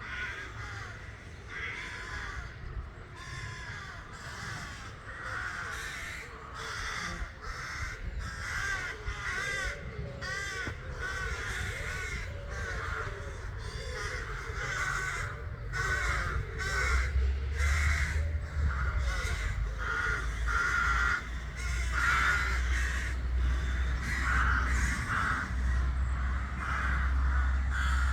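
Many ravens at a nesting colony, cawing over one another in a continuous chorus of short, repeated calls. From about halfway through, a low rumble joins in underneath.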